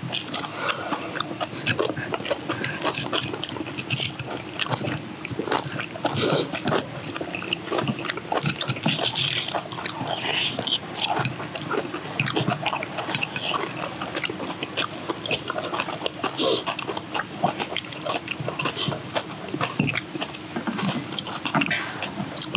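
Several people eating close to the microphone: wet chewing and lip-smacking on kimchi and rice, with frequent small clicks of chopsticks and spoons against metal bowls.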